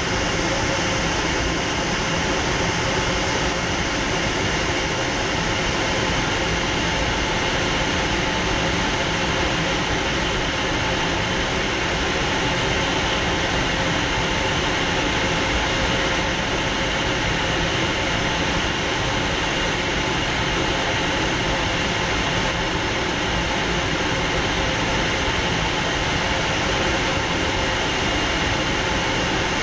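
Fouga Magister jet trainer in flight, heard from inside the closed cockpit: the steady whine of its twin Turbomeca Marboré turbojets mixed with rushing airflow, with a few steady tones held throughout.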